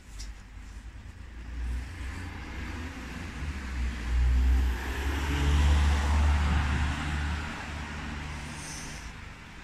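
A car passing by: a low engine rumble with tyre hiss that swells to its loudest around the middle, then fades away.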